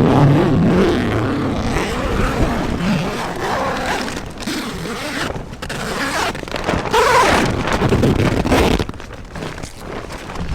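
Strong gale-force wind gusting against a small tent, the fabric buffeting and flapping; it swells and eases in gusts and drops off about nine seconds in.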